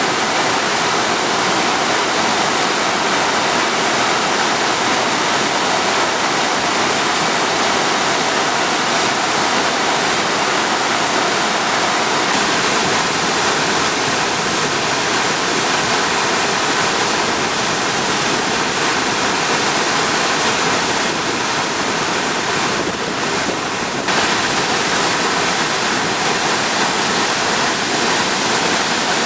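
Flood-swollen mountain river, high with heavy typhoon rain, its fast water rushing in a loud, steady, unbroken torrent.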